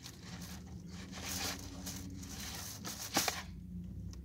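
Fingers tearing apart a piece of crispy KFC fried chicken, a soft rustling crackle of the breading, with one short sharp click about three seconds in.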